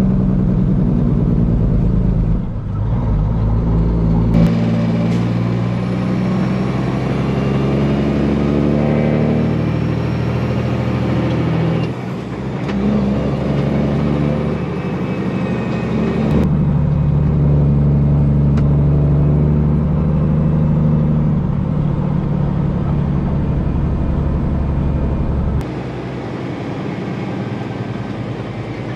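Semi truck's diesel engine running under way, a steady deep drone whose note changes abruptly several times.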